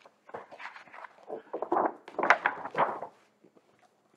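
Pages of a large paperback picture book being turned: a paper rustle and flap lasting about three seconds, loudest a little past halfway.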